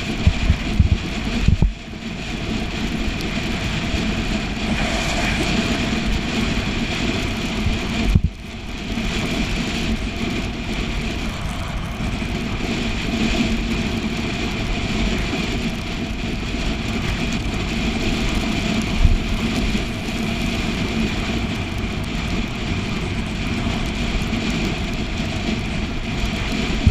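Steady rushing wind and road noise on a bike-mounted camera while cycling fast in the rain, with a few low buffeting thumps in the first two seconds and one more about eight seconds in.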